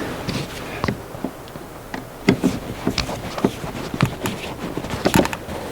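Irregular clicks and knocks of a screw being fitted and driven into the back of a car's plastic center console.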